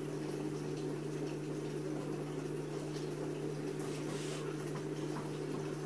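A steady low mechanical hum at an even level, with a brief faint rustle about four seconds in.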